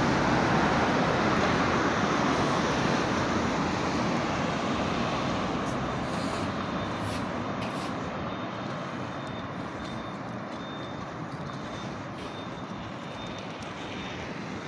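Road traffic noise from a vehicle passing on a wide city street, loudest at the start and fading steadily as it moves away.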